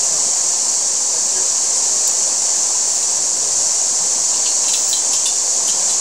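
Steady rushing of flowing water, heard as an even, high hiss. A few light clicks come about three-quarters of the way through.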